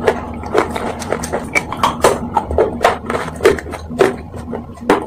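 Close-miked crunching as a person chews hard, brittle pieces, with sharp crisp cracks coming irregularly about two to three times a second.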